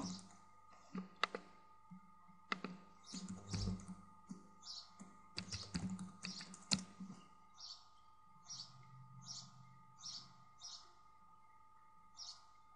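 Computer keyboard typing and mouse clicks, faint: a few sharp clicks in the first seven seconds, then a run of softer keystrokes about one every half second to second as a password is typed in.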